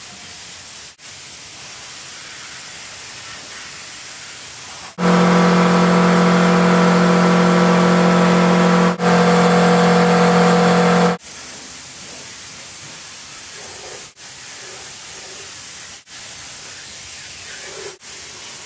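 Compressed-air paint spray gun hissing as colour is sprayed on, in passes broken by short stops. For about six seconds in the middle a loud, steady humming drone sits over the hiss and is the loudest sound.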